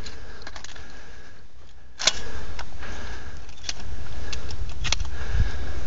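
Clicks and light rattles of a shooter's firearms and gear being handled while changing guns, with one sharper click about two seconds in. Under them runs a steady low rumble.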